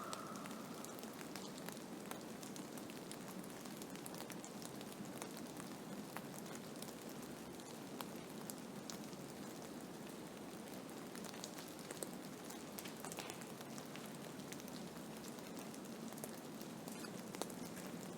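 Blizzard: a steady hiss of wind-driven snow with a constant fine ticking and patter of grains striking surfaces.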